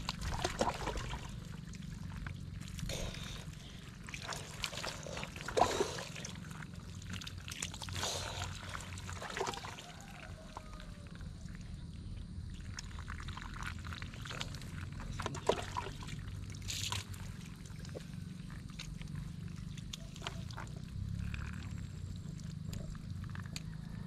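Water poured from a plastic dipper over a man's head and body, splashing down in irregular bursts, with the dipper scooping from a basin between pours, during an open-air bucket bath. A steady low rumble runs underneath.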